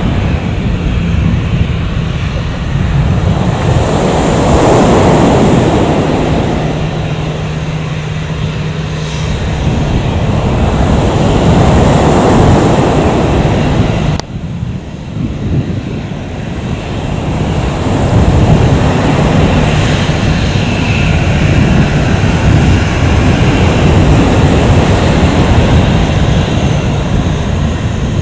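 Loud jet noise from a landing Boeing 737-800's CFM56-7B turbofans as the airliner rolls out on the runway, a low rumble with two long swelling whooshes. The level drops suddenly about halfway through and then builds again.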